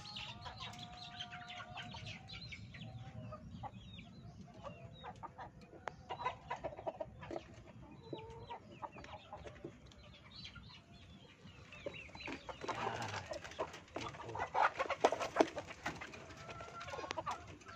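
Native Indonesian village chickens (ayam buras) clucking and calling together in a wire coop, with scattered sharp clicks and knocks. About fourteen seconds in, the clicks thicken into a louder flurry alongside the calls.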